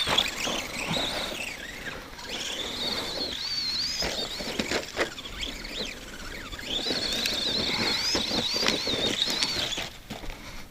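Arrma Granite 2WD RC monster truck's electric motor and gears whining, the pitch wavering up and down with the throttle, in three spells with short lulls between, over the rustle of its tires on dirt and a few light knocks.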